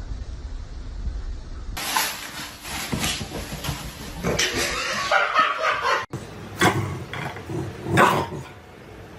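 A dog barking in short, repeated barks.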